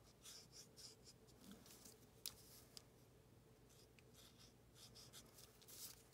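Faint scratching of an alcohol-ink blending marker's tip stroking over paper as an image is coloured in, in short irregular strokes, with two sharp ticks about half a second apart near the middle.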